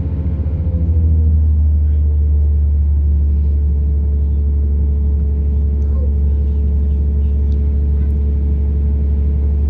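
A British Rail Class 170 Turbostar diesel multiple unit under way, heard from inside the carriage: the steady low drone of its underfloor MTU diesel engine and transmission. Its note drops in pitch about a second in, then holds steady.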